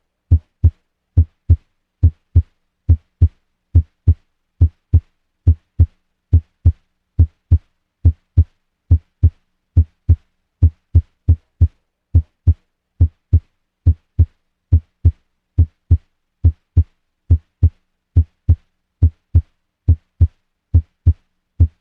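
Heart sounds beating in a steady regular rhythm of short low thuds, with the first heart sound (S1) abnormally widely split. The split comes from delayed closure of the tricuspid valve, as in right bundle branch block.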